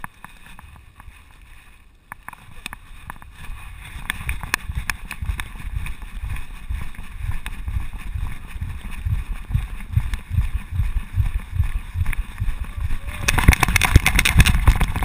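A running dog's strides jolting a back-mounted action camera in its housing: a fast run of muffled, rhythmic low thuds with wind rushing over the microphone, which grows to a loud rush near the end.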